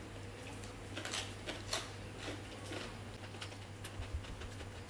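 Close-miked eating sounds: chewing and small wet mouth clicks, scattered several to a second, over a low steady hum.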